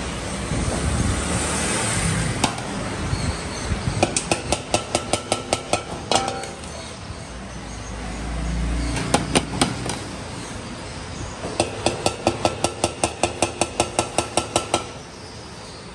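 Metal ladle rapping quickly and repeatedly against a steel serving tray and bowls, in two long runs of sharp metallic taps at about five or six a second with a ringing note, over a steady background hum.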